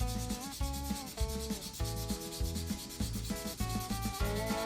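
Hand sanding of a carbon-steel pocketknife blade with 220-grit sandpaper: repeated back-and-forth rubbing strokes, about two a second, with the grain in one direction.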